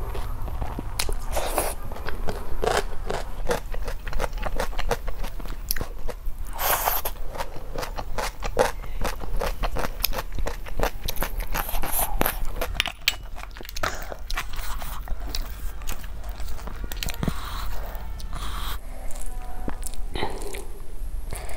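Close-miked eating of snail curry with rice: chewing and mouth smacks with many sharp, irregular clicks and crunches.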